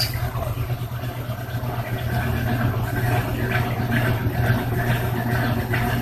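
Electrolux LT08E Turbo Agitação top-loading washing machine running mid-cycle: a steady low motor hum with water churning in the tub, getting gradually a little louder.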